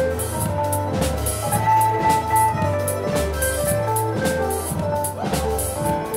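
Live contra dance band playing a dance tune with a steady drum beat under sustained melody notes.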